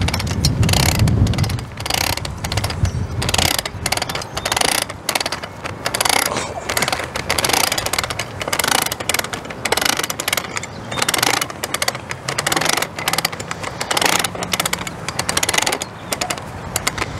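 Rapid, repeated clicking of a hand-cranked winding tool turning the torsion spring inside an A&E 8500 manual awning's roller tube counterclockwise. Wind rumbles on the microphone in the first few seconds.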